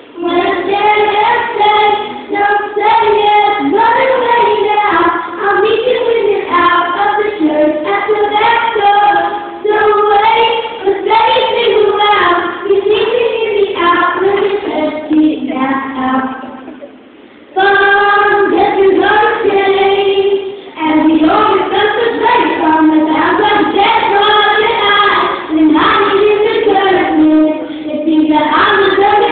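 Children's choir singing together, with a brief pause a little past halfway through.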